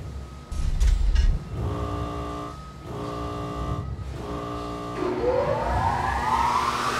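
Flexo label press starting up: a low thump, then three long buzzing warning tones, then a whine that keeps rising in pitch as the drives spin up.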